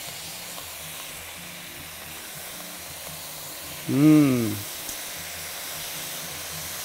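Salmon fillets, vegetables and citrus slices sizzling steadily in a hot stainless steel skillet cooked without oil, with orange juice just squeezed over them. Quiet background music underneath. About four seconds in comes one short vocal sound from a person, its pitch rising then falling.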